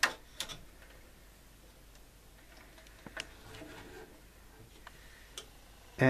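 Sparse clicks and light taps as the inverter's circuit board and hand tools are handled and the board is turned over: a sharp click at the start, another about half a second later, a few more around three seconds in, and one near the end.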